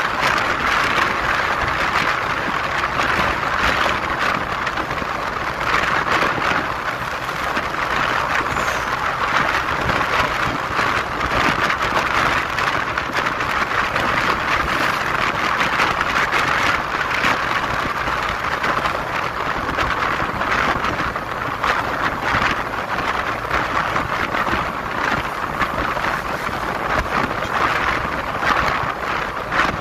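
Wind rushing over the microphone of a moving vehicle, a steady rough noise mixed with road and engine noise, with no clear engine note standing out.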